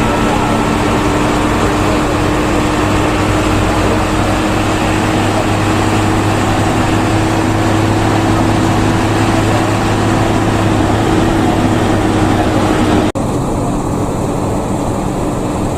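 Intercity bus on the move, heard from inside the cabin: a steady engine drone with a constant low hum under road noise. About 13 seconds in the sound changes abruptly and the hiss drops away.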